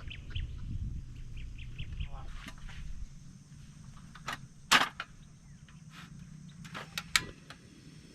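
Outdoor ambience with small birds chirping in short repeated notes, over a low rumble that drops away about three seconds in. A few sharp clicks follow, the loudest just before the five-second mark.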